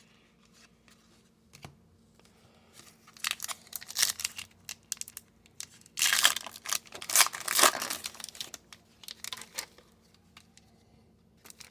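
Plastic wrapper of a trading card pack crinkling and tearing as it is opened by hand. It starts after a few quiet seconds, is loudest in the middle, and fades out near the end.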